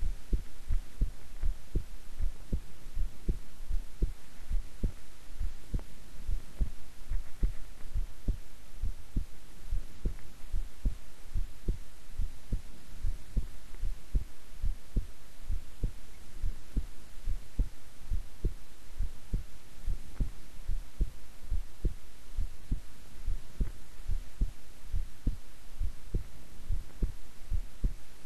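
A woman's heart beating at rest: a steady run of soft, low thumps in an even rhythm.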